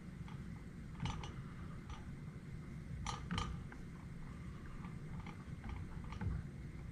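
Silicone spatula stirring cream in a stainless steel pot, with a few short scrapes and taps against the pot, the clearest pair about three seconds in, over a steady low rumble.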